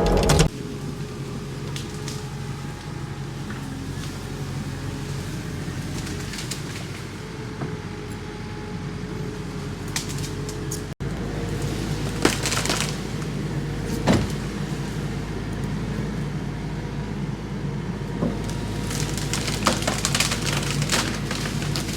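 Kubota SVL90-2 tracked skid steer's diesel engine running steadily, with a few sharp knocks about halfway through and again near the end.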